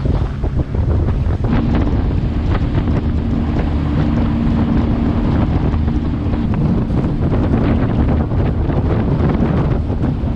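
Wind buffeting the microphone on a boat at sea, over the wash of waves with scattered crackles and splashes. A steady low hum comes in about one and a half seconds in and fades out a little after the middle.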